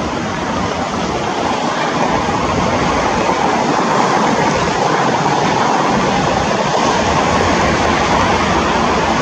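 Steady jet engine noise from a Boeing 787-9's GEnx-1B turbofans during its landing roll, spoilers raised, growing a little louder over the first few seconds and then holding.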